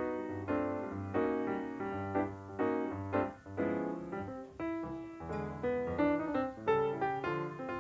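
Background piano music: a run of struck chords over low bass notes, each fading before the next.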